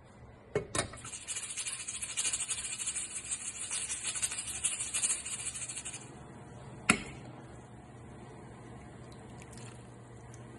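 A couple of knocks as chicken bones go into a pot of hot chicken stock, then several seconds of fizzing, crackling bubbling from the stock that stops abruptly. About a second later there is a single sharp click.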